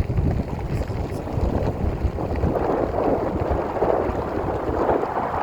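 Wind buffeting the microphone: a steady rushing noise with uneven low gusts.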